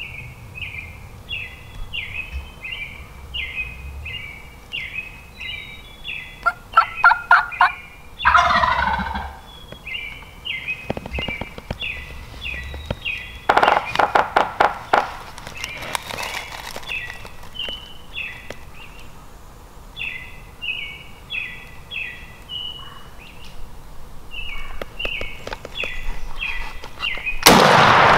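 Wild turkey gobblers close by, giving loud rattling gobbles about seven, fourteen and sixteen seconds in, with low drumming, over a steady run of short high chirping notes. Near the end, a single very loud shotgun blast.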